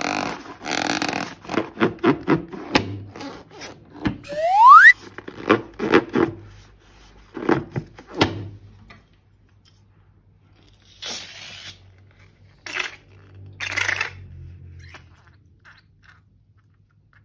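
Rubber balloons squeaking as they are rubbed and squeezed, with one loud rising squeak about four seconds in. In the second half come three or four short hissing, crackling sounds.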